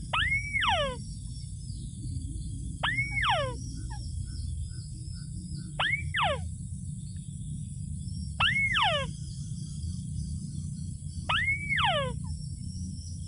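Bird lure call played back for trapping: a single harmonic note that rises and then slides down, repeated identically about every three seconds, over a steady low rumble.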